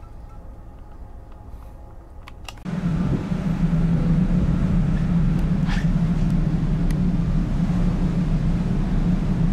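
A low steady hum with a few clicks about two and a half seconds in, then a sudden jump to a loud steady rumble with a deep hum: wind and engine noise on the open deck of a ferry under way at sea.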